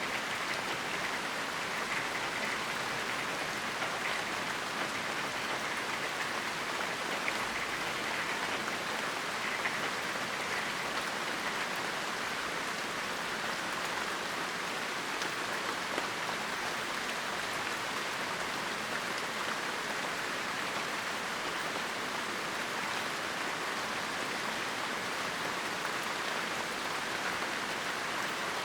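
Steady heavy rain falling, a constant hiss of many drops with occasional faint individual drop ticks.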